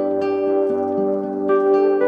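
Calm instrumental background music: held chords with new notes coming in twice.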